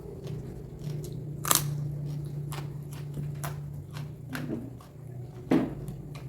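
Close-up eating sounds: a person biting and chewing crunchy food, with sharp crunches, the loudest about a second and a half in and again near the end.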